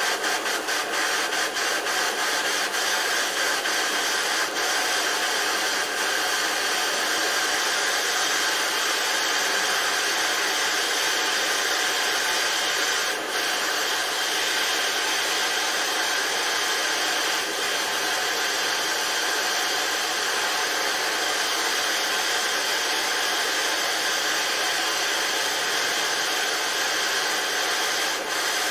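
MAP gas hand torch burning steadily with an even, rushing hiss as its flame is fired into a metal tube to heat an O1 tool-steel blade for hardening.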